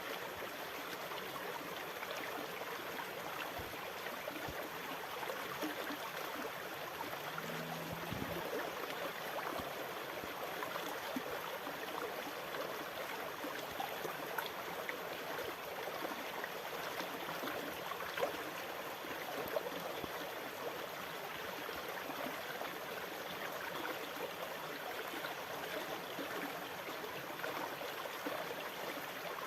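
Continuous sea water sound: a steady, even rush of water with small gurgles and splashes and no distinct wave surges.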